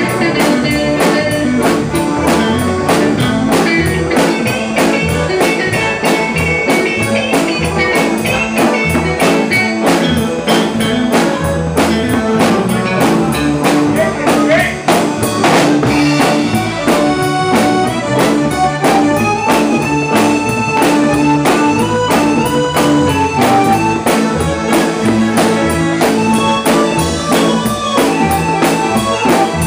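Live band playing a tune: a drum kit keeps a busy beat under guitar and other melodic lines, heard close to the drums.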